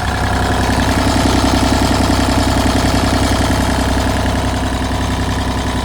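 Kubota diesel engine of a Bobcat E35i mini excavator running steadily at idle, smooth and even.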